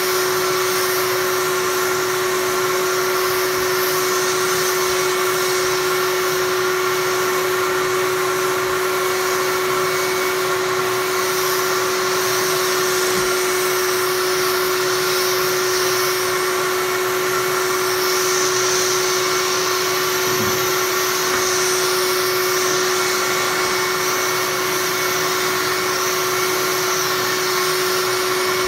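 Dust-extraction vacuum running steadily, drawing air and sanding dust through the hose of a round pole-mounted drywall sander. It makes a steady hum over a constant rush of air.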